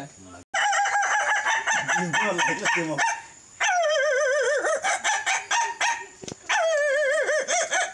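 A man imitating a chicken with his voice: a run of quick clucking notes, then two long wavering rooster-like crows, each starting high and sliding down.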